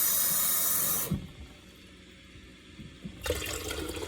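Kitchen faucet running into a can to measure water for frozen juice concentrate, a steady hiss that is shut off about a second in. Just after three seconds, water begins pouring into a container.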